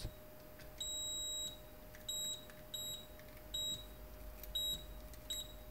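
Handheld digital multimeter in diode-test mode beeping as its probes touch the pins of shorted MOSFETs: six high beeps, the first about two-thirds of a second long, the rest short and irregularly spaced. The beep signals a short circuit, the sign of failed backlight-inverter MOSFETs.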